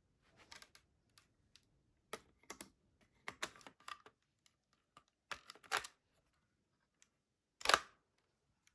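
Lego plastic pieces clicking and rattling as the Lego AR-15 model is handled: a run of irregular short clicks and little rattles, the loudest near the end.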